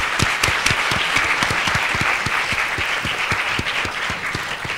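Audience applauding, many hands clapping together, easing off slightly toward the end.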